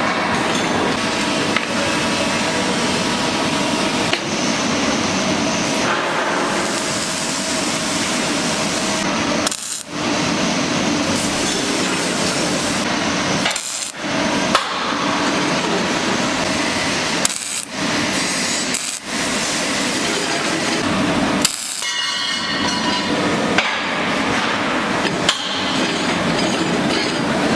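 Metalworking noise: a steady, harsh hiss that cuts off abruptly several times, as from edited clips of work on steel.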